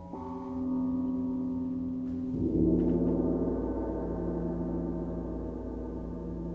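Instrumental ensemble holding sustained, ringing notes with no singing; a new chord enters at the start, and a louder, deeper chord swells in about two and a half seconds in and rings on.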